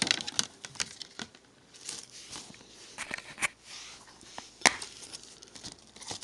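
Cardboard slipcover and plastic Blu-ray case being handled and slid against each other: irregular rustling with light clicks, and one sharper plastic click a little before the five-second mark.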